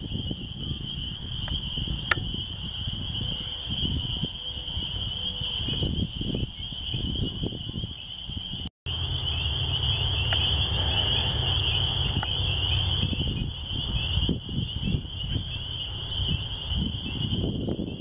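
A dense chorus of spring peepers, many high peeps overlapping into one steady shrill band, with a low wind rumble on the microphone. The sound breaks off for an instant about halfway through.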